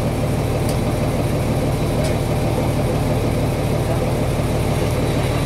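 An engine running steadily at a constant low pitch, with no change in speed. Two faint ticks come within the first two seconds.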